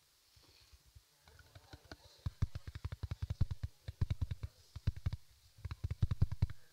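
Rapid runs of light clicks and taps, several a second, starting about a second and a half in, with a short pause near the end before a last run.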